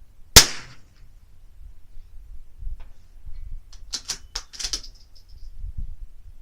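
A single shot from a .22 LR rifle firing subsonic ammunition: one sharp crack with a short ringing tail, about half a second in. Around four seconds in there is a quick run of five or six sharp clicks, and a low rumble runs underneath.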